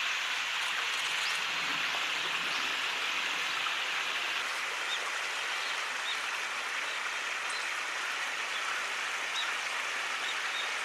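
Steady rush of flowing stream water. A few faint, short high chirps sound over it in the second half.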